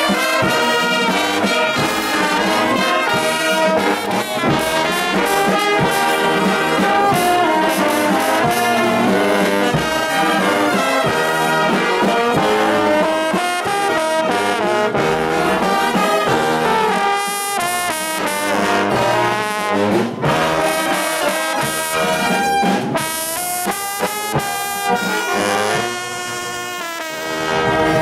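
Brass band playing: trumpets and sousaphones sounding a tune together, loud and continuous.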